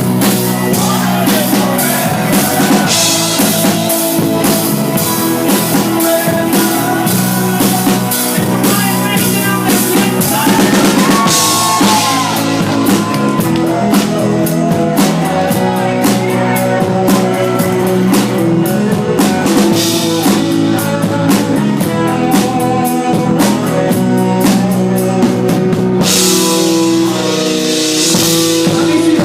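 Rock band playing live: a drum kit beats steadily under electric guitar. It is loud and thin-sounding through a small handheld device's microphone, with little deep bass.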